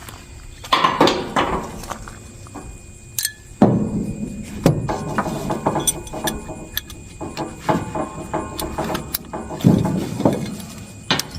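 Metal clinking and clicking of tie-down strap hardware being worked, with several louder knocks.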